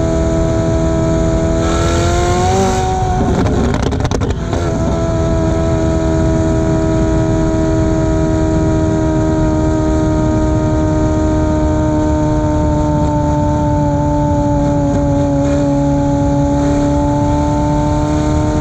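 McLaren 720S twin-turbo V8 with catless downpipes, ECU tune and X-pipe exhaust, running loud and steady. Its note rises a few seconds in and breaks into a burst of crackles and pops, then settles back to a steady drone that sags slightly in pitch near the end and picks up again.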